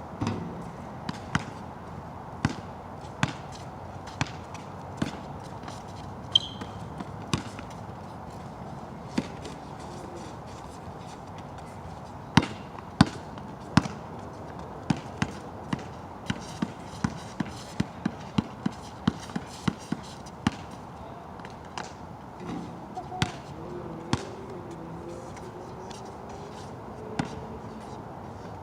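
Basketball bouncing on a wet court during a pickup game: irregular sharp bounces, with a steady run of dribbles about two a second in the middle. A steady rain hiss sits under it.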